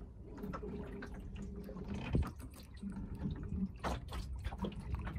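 Water lapping and slapping against the wooden hull of a small sailboat under way, with sharper splashes about two and four seconds in.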